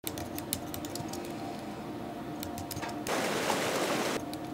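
Typing on a low-profile computer keyboard: a quick, irregular run of key clicks over a steady low hum. About three seconds in, the rush of whitewater replaces it for about a second, then the key clicks come back near the end.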